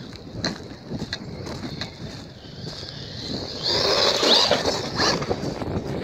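Hosim 1/16-scale brushless RC truck on paddle tyres driving over gravel: tyre and gravel noise with the motor's high whine rising and falling, loudest as it runs close by about four seconds in.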